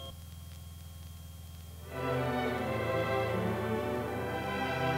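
Orchestral string music from XM satellite radio piped through the aircraft intercom, coming in about two seconds in over a steady low hum.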